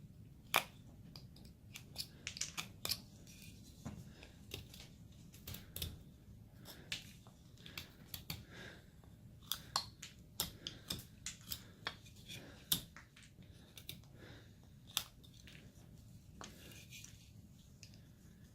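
Carving knife cutting into basswood by hand: irregular short, crisp snicks and scrapes as chips are sliced off, a few a second, with some sharper clicks among them.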